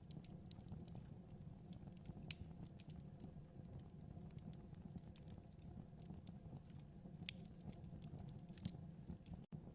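Wood fire crackling in a fireplace: irregular sharp pops and snaps over a low, steady rumble of the flames. The sound drops out for a split second just before the end.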